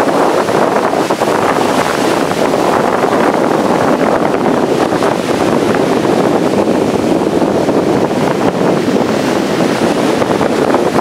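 Wind buffeting the microphone, a loud steady rush, with breaking Gulf surf mixed in beneath it.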